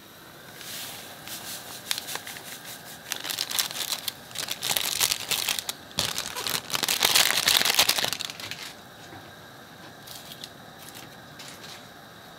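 A cut-open seasoning sachet crinkling as it is tipped and shaken over a pot, its powder emptying into the broth. The crinkling comes in bursts for most of eight seconds, loudest near the end, then stops.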